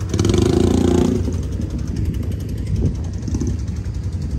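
ATV (quad bike) engines running, a steady low drone that is louder for about the first second.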